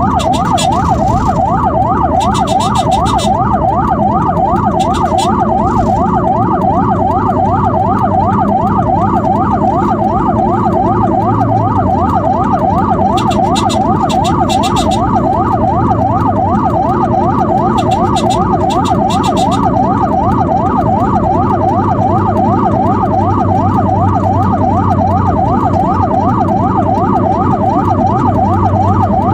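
Emergency siren in a fast yelp, its pitch rising and falling about three times a second without a break, over low road and engine rumble.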